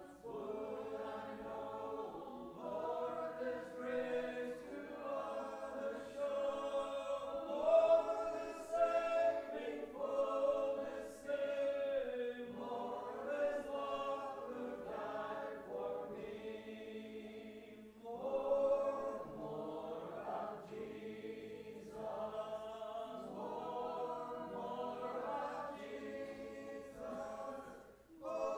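A congregation singing a hymn a cappella, many voices together in slow, held phrases with short breaks between lines.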